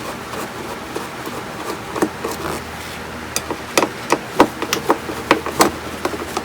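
Irregular sharp clicks and taps of small hand tools working on a power-supply circuit board, about a dozen of them, most in the second half. They come from the work of swapping out swollen electrolytic capacitors.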